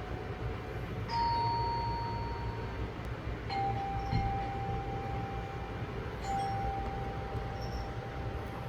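Three ringing chime-like tones, one higher note followed by two lower ones, each starting sharply and holding for two to three seconds, over a steady low rumble.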